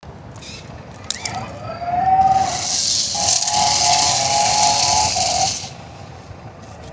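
RC drift car's electric motor whining, with a brief rise in pitch about a second in. A steady hiss joins it from about two seconds in and stops shortly before the end.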